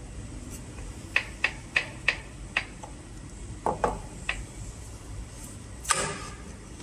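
Rollers being pushed onto their shafts on a straw packing machine: a quick series of about five light clicks and knocks, a few more a second later, then a louder scrape near the end.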